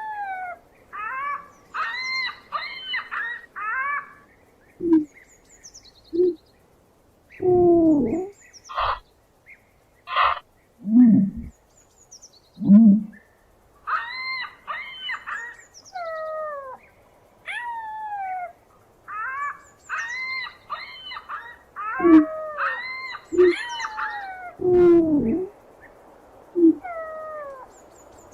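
A series of animal calls: short pitched notes, many sliding down in pitch, some in quick clusters, broken up by about nine short, deep hoots.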